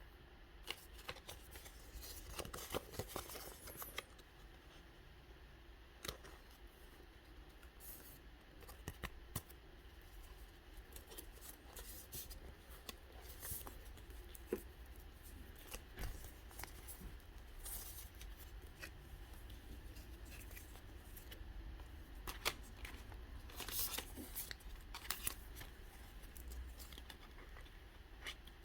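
Pokémon trading cards and their packaging being handled up close: scattered crackles, snips and light taps at irregular intervals, with a small cluster of louder crackles near the end.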